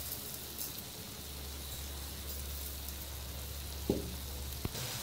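Steady, soft sizzle of hot oil frying under a layered pot of zarda rice on a high flame, with two small clicks a few seconds in.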